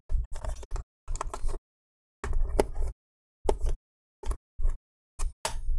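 Hands handling a laptop's metal bottom cover: about nine short, irregular rubbing and tapping noises, each with a dull thump.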